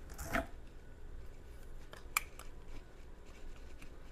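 Plastic handling sounds from a folding avocado flip-smasher tool being worked by hand: a brief scrape near the start, then a sharp click about two seconds in with a few fainter clicks around it.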